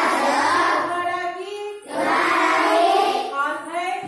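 A class of young schoolchildren singing together in unison, in two phrases with a short break between them about two seconds in.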